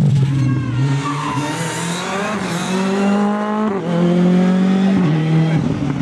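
Rally car engine under hard acceleration. Its pitch climbs steadily, drops sharply at an upshift about three and a half seconds in, climbs again, and drops at a second upshift about five seconds in.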